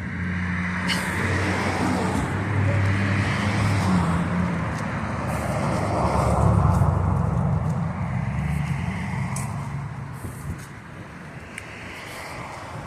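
A road vehicle driving past: a low engine hum with tyre and road noise that swells to a peak about six or seven seconds in, then fades away.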